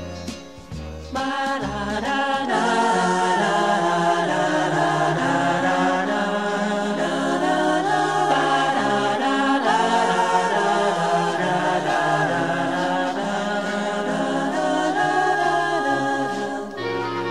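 Background music: one piece ends about a second in and gives way to voices singing in choir, in long held chords. Near the end a different piece begins.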